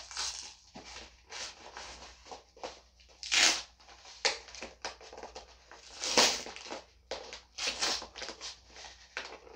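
Cardboard book-wrap mailer being torn and pried open by hand: irregular ripping and crinkling, with louder tears about three and a half and six seconds in.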